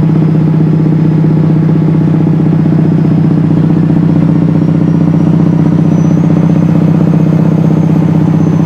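Kenworth's 600-horsepower Cummins diesel engine working at full power under heavy load, a loud, steady drone that holds one pitch without a gear change, heard from inside the cab.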